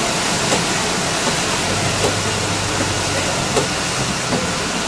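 Interior of an Orion V transit bus under way on a wet road: steady engine and tyre noise, with the windshield wipers ticking at the end of each sweep about every three-quarters of a second.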